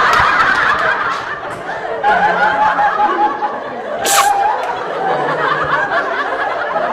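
People chuckling and laughing softly. A short sharp hiss comes about four seconds in.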